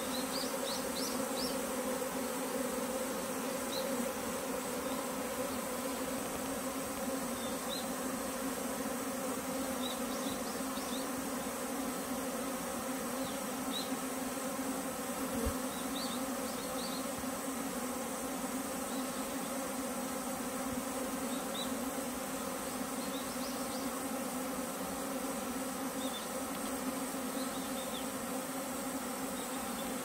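A honeybee swarm buzzing noisily around its hive box in one steady, dense drone, the sound of a natural swarm gathering around its queen.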